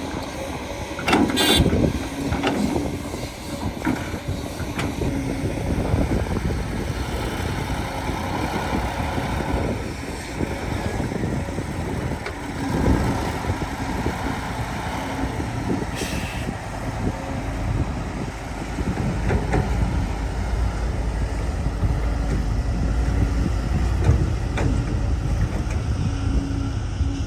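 Heavy earth-moving machinery at work: an excavator and dump truck's diesel engines running with a steady low rumble, broken by clanks and knocks, the loudest about a second and a half in.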